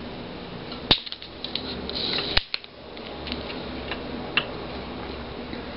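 Hand tools working the solder joints of an LCD TV power board: two sharp snaps about a second and a half apart, with light ticks and scraping between and after them.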